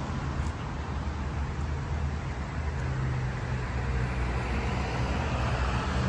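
Street traffic: a steady low rumble of passing cars and scooters, growing a little louder near the end.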